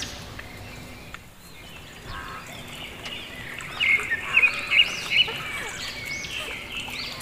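Birds calling and chirping, with repeated arching call notes; a cluster of sharp, loud chirps about four seconds in.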